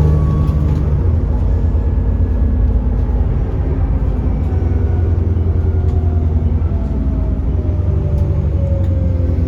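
Alexander Dennis Enviro400 double-decker bus running on the road: a steady low diesel drone with a faint whine that slides slowly down in pitch over the last few seconds.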